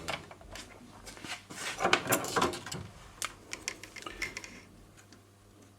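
Light clicks and metallic clinks of workbench handling as multimeter probes are picked up and set on the circuit board; the clicking stops about a second before the end.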